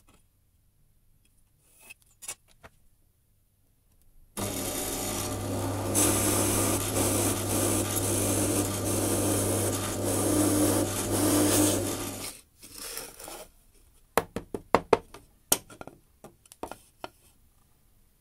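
Drill press running and boring a hole through a laminated chipboard base: a steady motor hum under the rough noise of the bit cutting, starting abruptly and running for about eight seconds. A short run of sharp clicks and knocks follows near the end.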